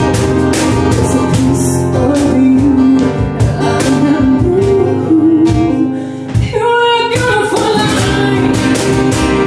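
Live acoustic band: a woman singing over a Roland FP-7F digital piano and strummed acoustic guitar, with a cajon keeping a steady beat. The low end drops away for a moment just past halfway, then the voice comes back in strongly.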